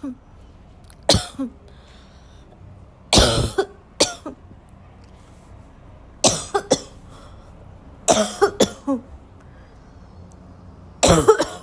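A person coughing in harsh, barking fits: single coughs and quick runs of two or three, coming every two to three seconds, some ending in a short rasping catch of the voice.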